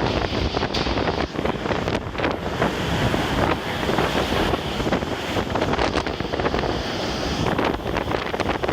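Typhoon-force wind gusting hard and buffeting the microphone in a dense, fluctuating roar.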